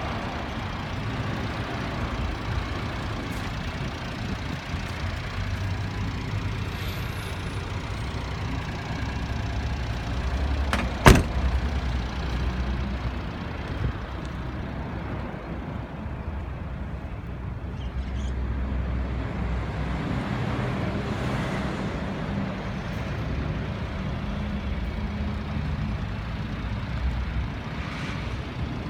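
Honda Acty kei truck's small engine idling with a steady low hum, with one sharp knock about eleven seconds in.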